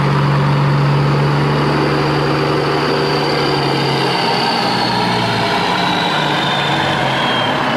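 Truck engine idling steadily, a low hum with a faint high whine that slowly drops in pitch, cutting off abruptly at the end.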